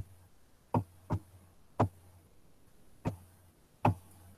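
About six short, sharp knocks or clicks at irregular intervals, with a faint low hum between them.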